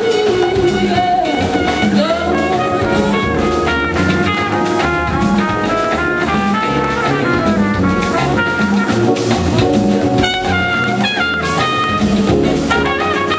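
Live jazz band playing: a horn melody moving in steps over drum kit and congas.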